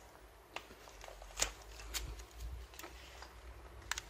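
Faint handling sounds of gloved fingers and tweezers working a small glued plastic strip on a bench: a few scattered sharp ticks and light rustles, the loudest about a second and a half in.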